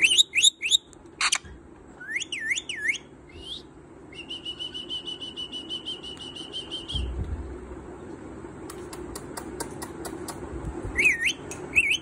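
A pet parakeet making short whistled calls that sweep down and up, with a long, fast trill of repeated notes in the middle. Near the end comes a run of sharp clicks, followed by two more whistles.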